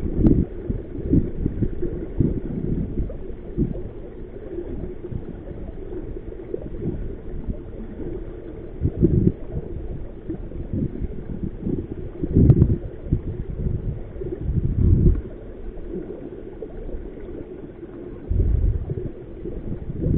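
Choppy river water gurgling and slapping around a small inflatable boat, with gusts of wind rumbling on the microphone in irregular surges, the strongest about halfway through and near the end.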